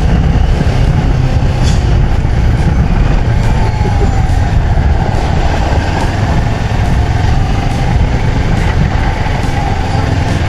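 CFMoto 650MT motorcycle on the move at low speed: its parallel-twin engine running under a steady, heavy low rumble of wind and road noise on the camera microphone.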